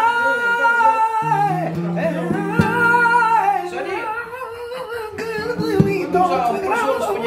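A man singing flamenco-style, holding long wavering, ornamented notes over a plucked guitar.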